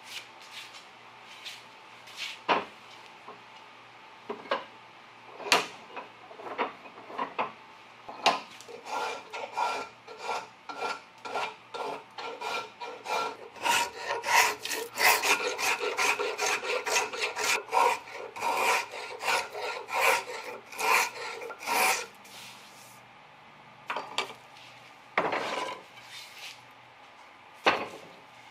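A hand edge tool shaving a wooden baseball bat blank, of a wood the maker takes for mulberry: short scraping cutting strokes, scattered at first, then a steady run of about two strokes a second, and a few more after a pause near the end.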